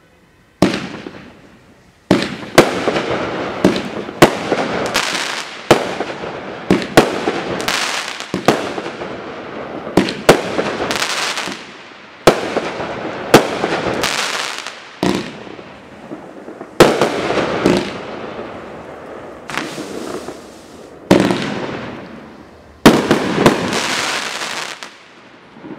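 Dominator DB5801 Extreme Caution, a 63-shot 500-gram consumer firework cake, firing: a rapid series of sharp bangs, at times two or more a second, each trailing off into a fading crackle. The first bang comes about half a second in, and the shots run in volleys with short pauses between them.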